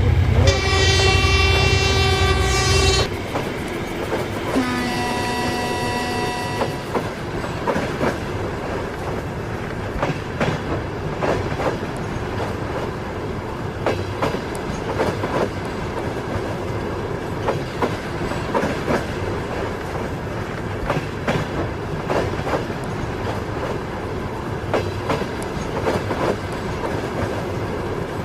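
Departing suburban train sounding two horn blasts, the first about three seconds long and the second, lower one a couple of seconds later. The train then moves off with a steady rumble and irregular clicks of wheels over rail joints.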